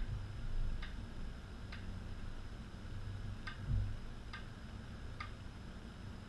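Metronome clicking at a steady tempo, a little more than one click a second, over a low rumble. Two dull low thumps come near the start and just before four seconds in.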